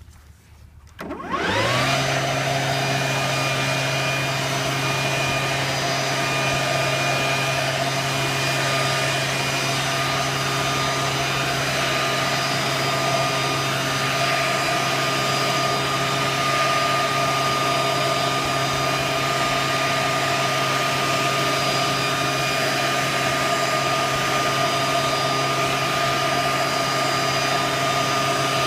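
Stihl BGA 85 battery-powered blower switched on about a second in, its electric motor spinning up quickly and then running at a constant speed: a steady whine over a rush of air as it blows snow.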